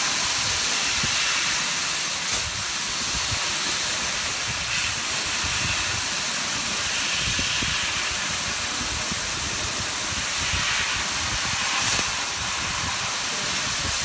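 A 1000 W fiber laser cutter cutting 4 mm stainless steel: a steady, loud hiss of the assist-gas jet blowing through the cutting head as it cuts. Two brief pops are heard, one about two seconds in and one late on.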